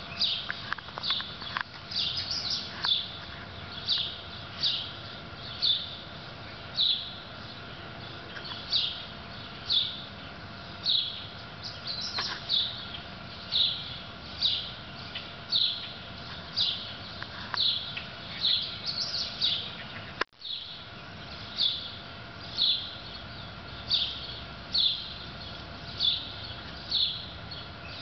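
A bird chirping over and over, a short downward-sliding note repeated about once a second, with the sound cutting out briefly about twenty seconds in.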